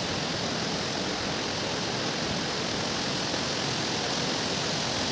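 Steady rush of water pouring through a partly open river sluice gate and spilling into the channel below.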